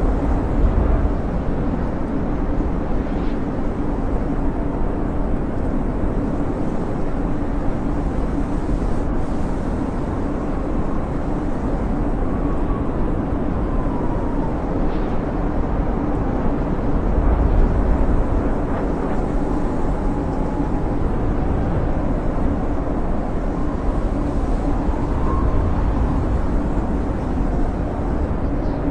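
Snowstorm wind howling steadily: a low rumbling roar with faint whistling gusts that rise and fall in pitch now and then, swelling louder a little past halfway.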